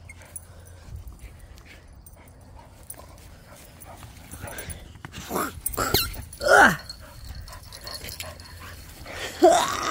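A dog's short vocal sounds, each falling in pitch: two in quick succession a little past halfway, and another near the end.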